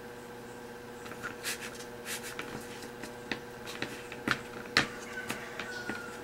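Hands rolling and pressing a sticky herbal-wormer-and-molasses dough into a rope on a plastic lid: scattered soft taps and clicks, the sharpest two about four and a half to five seconds in, over a steady electrical hum.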